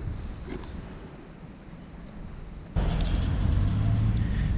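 Faint clicks of plastic fishing tackle being handled. About three seconds in, a steady low mechanical hum sets in abruptly and carries on unchanged.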